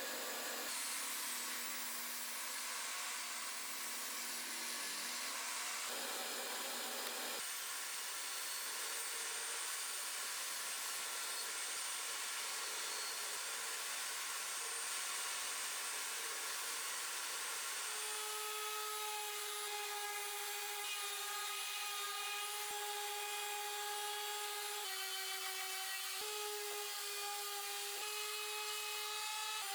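A power tool running steadily on softwood, a continuous rushing noise. From about two-thirds of the way in, a steady whine joins it and shifts in pitch a few times as the load changes.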